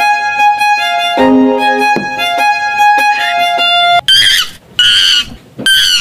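Music: a violin melody over plucked strings, playing held notes. About four seconds in it gives way to three short, high squeaky sounds about a second apart.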